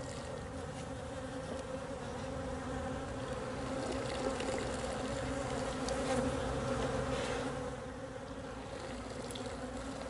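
Honey bees from a highly defensive ('hot') colony buzzing in great numbers around the opened hive, a steady dense hum that swells for a few seconds in the middle.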